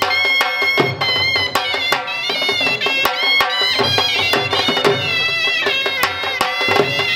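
Two shehnais playing a wailing melody together in long, bending reed notes, over a dhol beat of sharp strokes about twice a second.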